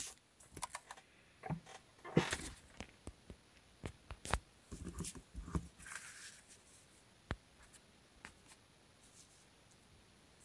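Cardstock and paper being handled on a tabletop: scattered light taps, clicks and brief rustles as cards are picked up and moved, thinning out after about six seconds.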